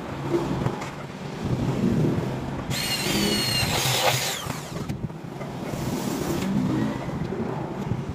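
Electric drill whining as its bit bores into an aluminium frame profile, for about two seconds in the middle, the pitch sagging slightly as the bit bites; a shorter, fainter run follows about a second later.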